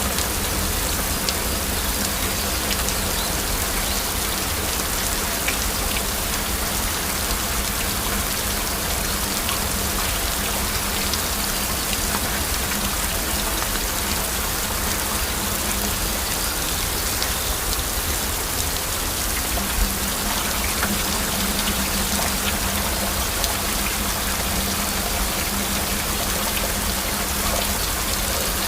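Steady heavy rainfall, an even wash of rain with many individual drops striking close by.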